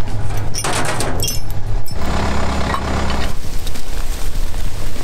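Kubota compact tractor's engine idling steadily; from about two seconds in to about three it grows stronger and deeper, and a short burst of hiss comes about a second in.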